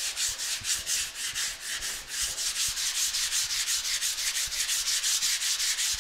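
80-grit sandpaper on a hand sanding block, scraping lightly over cured primer on a car fender. Quick, even back-and-forth strokes of about five a second make a steady, scratchy rasp as the primer is blocked flat and the guide coat is cut away.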